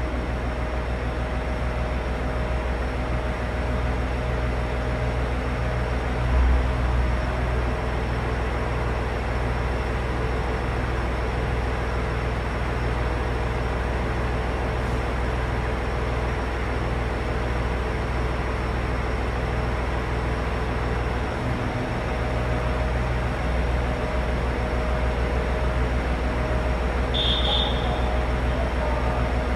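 JR Hokkaido H100 'DECMO' diesel-electric railcar standing at the platform with its diesel engine running at idle: a steady low drone with several steady tones over it. A brief high beep sounds near the end.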